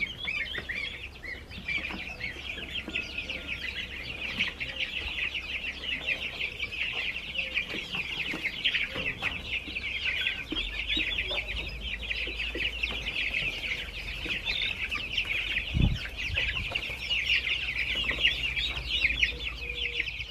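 A large flock of young chickens and goslings peeping without a break: many short, high chirps overlapping. One low thump sounds about sixteen seconds in.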